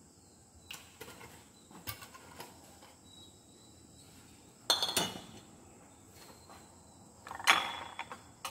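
Kitchenware being handled and set down: a few light clicks in the first couple of seconds, then two short, louder clatters with a clinking ring about five and seven and a half seconds in, the second the loudest.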